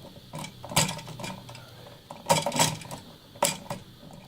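Small pliers gripping and twisting electrical wires together at a splice: a handful of sharp metallic clicks with light scraping between them.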